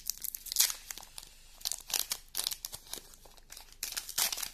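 Foil wrapper of a Pokémon trading card booster pack crinkling in the hands as it is opened, in a run of irregular crackles with louder bursts about half a second in and near the end.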